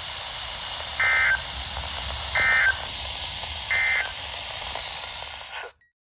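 RadioShack weather alert radio sounding the three short SAME end-of-message data bursts of a NOAA Weather Radio alert, evenly spaced about a second and a half apart, over steady radio hiss. The sound cuts off suddenly near the end.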